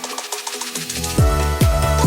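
Electronic background music. The bass drops out briefly, then a beat with a deep kick drum comes back in a little over a second in.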